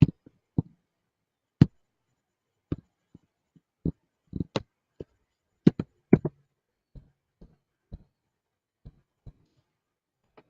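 Irregular sharp clicks and light knocks, about twenty of them spread unevenly, with silence in between.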